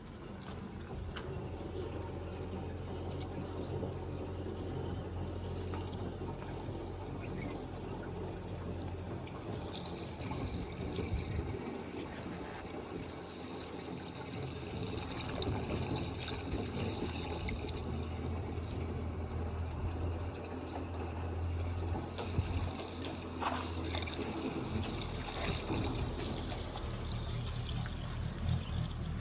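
Heavy machine's diesel engine running steadily, with a rushing noise over it that sounds like pouring water.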